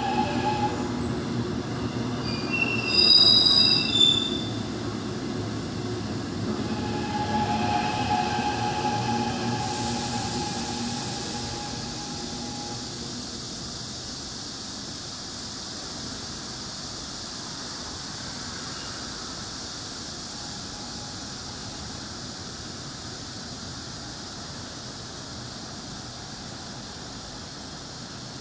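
Gwangju Metro Line 1 train pulling away from the platform. Its wheels squeal loudest about three to four seconds in, then the running rumble fades steadily as it draws off into the distance.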